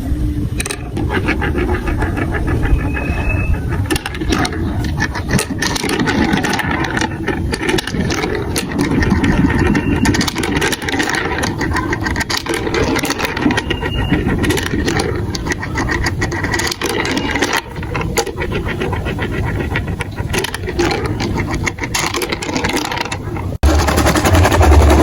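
Marbles rolling and clattering through a plastic marble-run track: a steady rolling rumble with many quick clicks of marbles knocking against the blocks and each other. It gets louder and deeper near the end.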